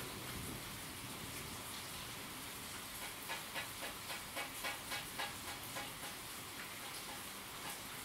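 Steady rain hiss. From about three seconds in, a run of regular ticks joins it, about four a second, for a couple of seconds.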